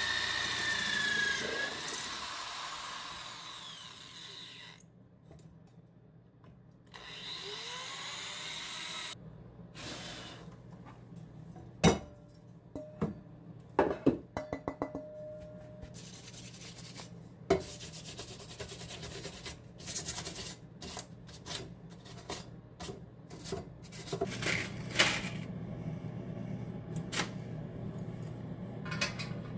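Hand metalworking on a small steel gas tank: a rotary tool whines, sliding in pitch, in the first few seconds, then a long run of sharp clicks, knocks and scraping of tools on metal.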